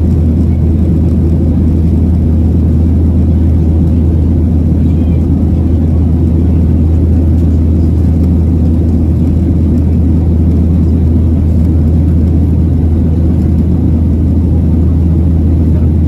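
Steady cabin drone of a Boeing 737-800 in its climb, heard from inside the cabin: the engines' deep hum mixed with the rush of air past the fuselage, even and unbroken.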